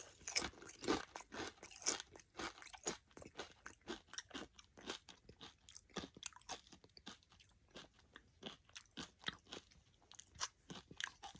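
Crunching and chewing of chips with salsa: a string of short, sharp, irregular crunches, a few a second, that thin out about two-thirds of the way through before a last few.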